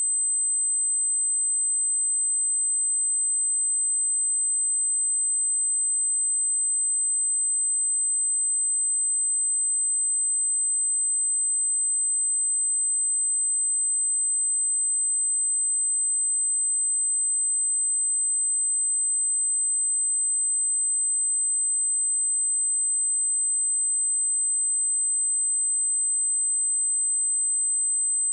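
A steady, high-pitched 8155 Hz sine-wave test tone: one pure tone at a constant level, with nothing else.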